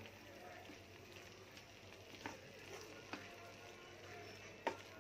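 A spatula stirring a thick vegetable stir-fry in a non-stick pan, faintly, with a few soft taps against the pan and one sharper knock near the end, over a low steady hum.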